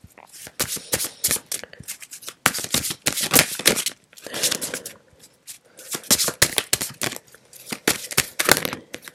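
Tarot deck being shuffled by hand: quick crisp card snaps and clicks coming in several short bursts with brief pauses between them.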